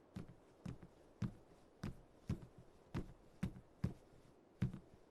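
Footsteps walking at about two steps a second, each a short, sharp knock.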